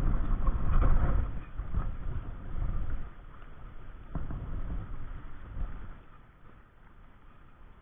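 Wind buffeting the microphone in gusts, a low rumble that eases off near the end, with one small click about four seconds in.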